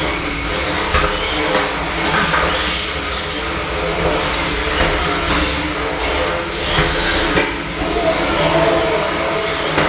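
Small electric combat robots' drive motors whirring as they drive about and push one another in the arena, with a few short knocks of contact over a steady noisy background.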